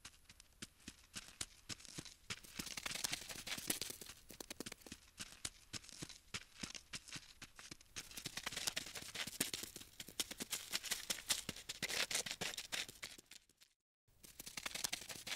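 Insect-crawling sound effect: rapid, dry, scratchy clicking that swells and fades. It breaks off briefly near the end, then starts again.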